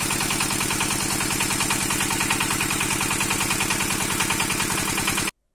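Water-cooled single-cylinder diesel engine of a Zubr 10 hp walk-behind tractor running steadily, an even rapid knock at about ten beats a second. It cuts off suddenly near the end.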